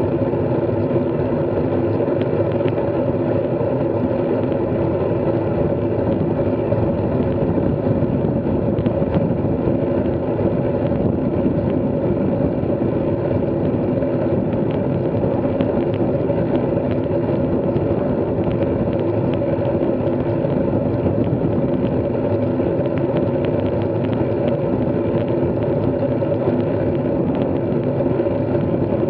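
A vehicle engine running steadily at an even speed, its hum holding a constant pitch over road noise.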